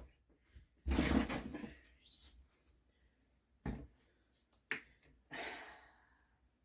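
Handling of a paper towel and a bottle of isopropyl alcohol: a rough rustling burst, two sharp clicks a second apart, then a shorter, softer rustle.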